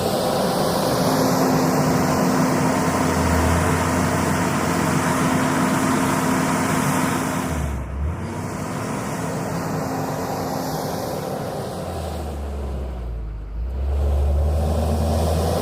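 JCB 426ZX wheel loader's diesel engine running steadily under load, with two short dips in the engine sound, about eight seconds in and again shortly before the end.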